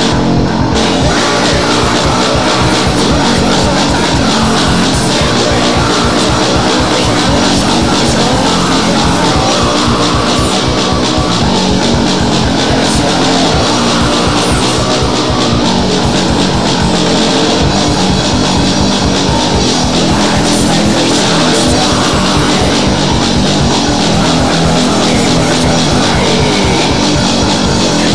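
Heavy rock band recording: distorted electric guitars over fast, driving drums, loud and dense with no let-up.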